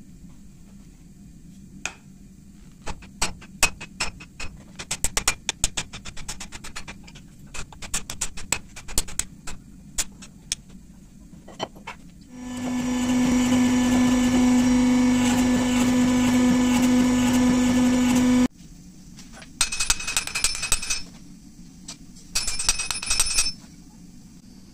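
Hammer blows on glowing crucible steel at the anvil, a run of sharp knocks. They are followed by a loud steady machine hum that lasts about six seconds and cuts off suddenly. Two short bursts of rapid clinking come after it.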